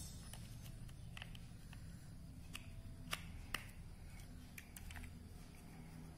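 Large plastic building blocks clicking and tapping as they are handled and pressed together: scattered light clicks, the two sharpest about half a second apart a little past the middle.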